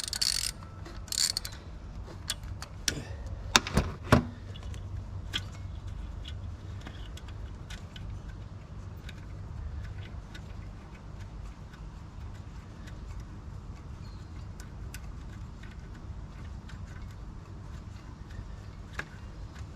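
Socket ratchet on the alternator's 10 mm mounting bolts: scattered light clicking, with a few sharp metal knocks in the first four seconds. A steady low hum runs underneath.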